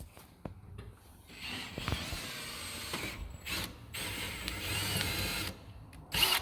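A power drill running in two stretches of a couple of seconds each, after a few light clicks, while the freshly drilled rivet holes in the vehicle's side are cleaned up. A short, loud burst of noise comes near the end.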